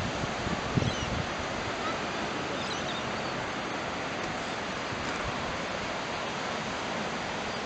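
Ocean surf breaking on a sandy beach, a steady rushing wash, with a brief gust of wind on the microphone about a second in and a few faint high chirps.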